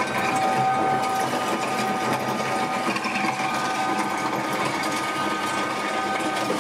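Electric disc mill running with a steady whine while crushed lapis lazuli is poured into its hopper to be ground finer.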